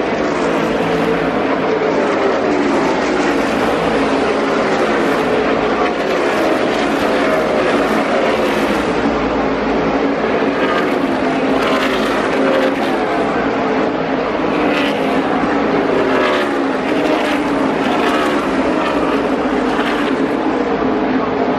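NASCAR Cup race cars' V8 engines running at full race speed: a loud, steady drone whose pitch slides down again and again as cars go by.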